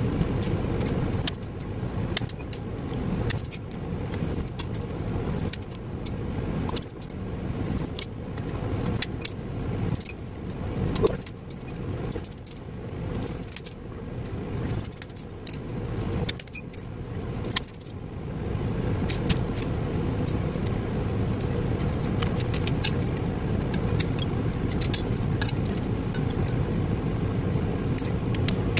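Loose copper rotor bars and hand tools clinking and rattling as they are handled and dropped on the pile: many short, irregular metallic clinks. Under them runs a steady hum of shop fans that grows louder about two-thirds of the way through.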